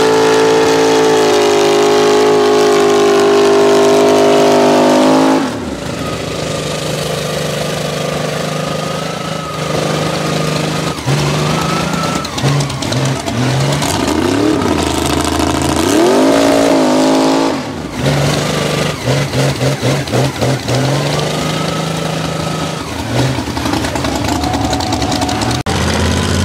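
Mega mud truck engines revving hard during a tug of war. The engine is held at high revs for about five seconds and then drops off suddenly. After that come several revs that rise and fall, a quick run of short throttle blips about two-thirds of the way in, and a steady engine note near the end.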